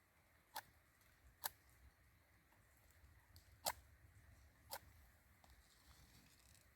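Near silence broken by four faint, sharp taps at uneven intervals.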